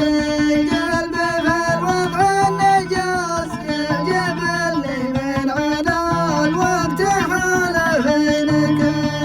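Middle Eastern music: a plucked-string instrument plays an ornamented, bending melody over held low bass notes.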